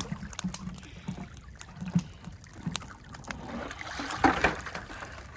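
A small plastic sluice box knocking and clunking as it is handled over a plastic pail, then water splashing about four seconds in as the sluice is rinsed out into a bucket of water to wash out its concentrates at cleanup.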